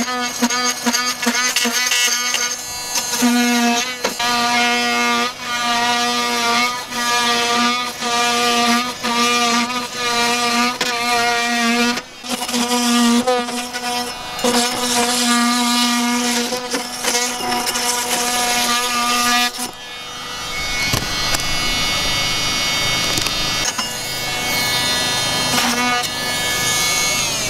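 Rockwell Sonicrafter oscillating multi-tool, fitted with a coarse rough-cutting blade, cutting through plywood. It gives a steady buzzing tone that breaks off and resumes in short runs as the blade is pushed through. For the last several seconds the tone fades and a rougher, noisier sound takes over.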